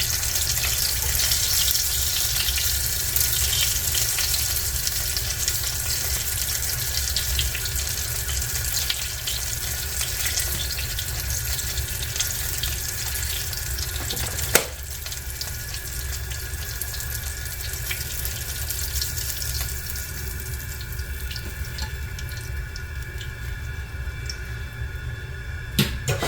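Cornmeal-breaded tomato slices frying in oil in a cast iron skillet: a steady crackling sizzle that thins out in the second half, over a low hum. A sharp knock about halfway and another near the end.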